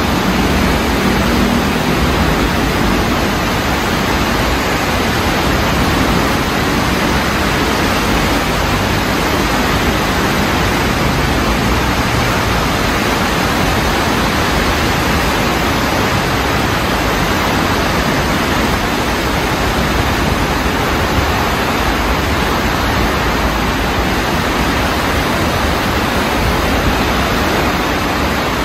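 A city stream in flood after heavy rain, its fast brown water rushing by in a steady, loud wash of noise.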